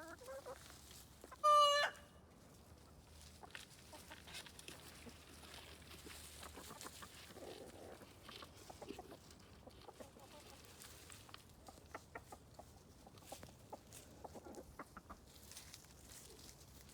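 Chickens clucking softly, with one loud, short call about one and a half seconds in.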